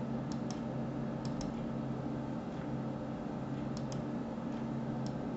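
Computer mouse button clicks, in about four quick pairs, over a steady low electrical hum.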